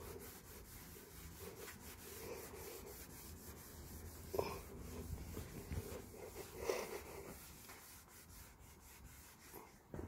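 Cloth rag rubbing faintly over a plastic headlight lens, wiping off the excess of a just-sprayed protectant, with a couple of brief louder scuffs about four and a half and six and a half seconds in.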